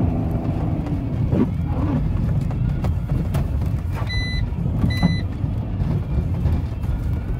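BMW X3 E83's 3.0-litre straight-six diesel and its tyres on snow, heard from inside the cabin while driving: a steady low rumble with a few knocks. About four seconds in come two short electronic beeps, under a second apart.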